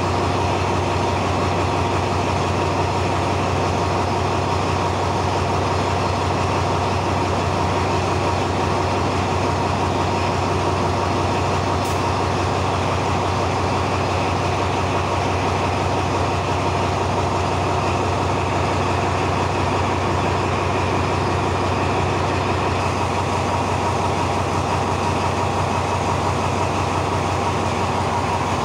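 Thai railway diesel-electric locomotive idling at a standstill: a steady, loud engine hum with a low throb. The engine note changes near the end, with a faster pulsing coming in.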